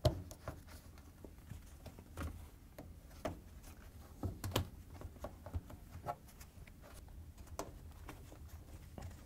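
Gloved hands working the rubber bellow tub seal of a front-load washer onto the rim of its door opening. Soft, irregular taps and rubbing, with a sharper knock every second or so.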